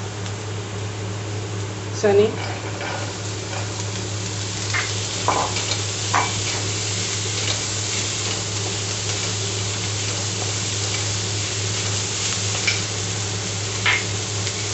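Boiled chickpeas being stirred into an onion-and-spice masala frying in oil in a steel kadhai: a steady sizzle, with a few short scrapes and knocks of the wooden spatula against the pan. A steady low hum runs underneath.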